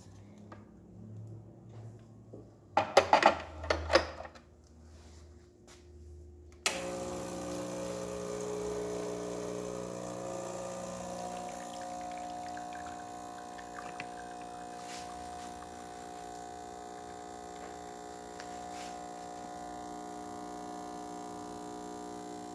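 Gaggia Classic espresso machine's vibratory pump buzzing steadily as it pulls an espresso shot, switching on suddenly about seven seconds in. Before it, a quick run of sharp clacks.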